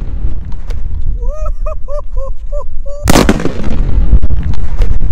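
A quarter stick of dynamite exploding: one loud blast about three seconds in that rings on for a couple of seconds, over wind buffeting the microphone. Before the blast, a quick run of about six short chirping tones.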